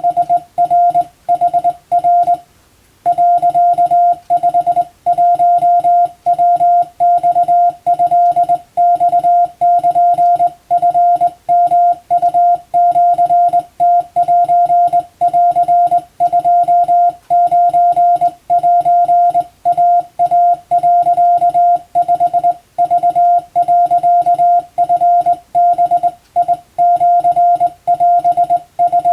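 Morse code (CW) being hand-sent as a beeping on-off tone: quick dits and dahs grouped into characters with short gaps, and one longer pause about two and a half seconds in. The text keyed is Japanese telegram practice in wabun code.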